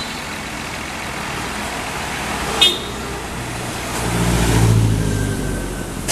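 Road traffic going by with steady tyre and engine noise. A short sharp click comes about two and a half seconds in. Then a heavy vehicle's engine swells up and fades as it passes, loudest around four to five seconds in.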